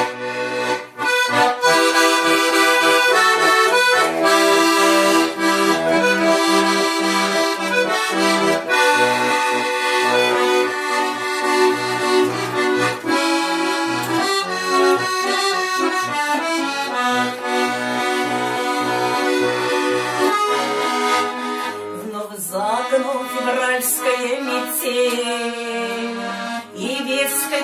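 Bayan (Russian button accordion) playing an instrumental introduction: held chords and a melody over bass notes in a steady rhythm. The bass thins out about 22 seconds in.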